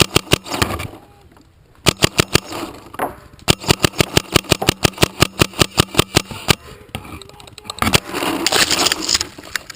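Tippmann 68 Carbine paintball marker fitted with an e-bolt firing in rapid strings of sharp shots: a few at first, a burst about two seconds in, then a long fast string of about seven shots a second.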